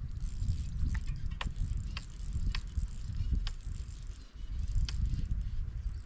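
Fly reel's click-pawl ratchet sounding in scattered single clicks, about six in a few seconds, as a hooked trout is played on the line. Under the clicks is a steady low rumble of wind on the microphone.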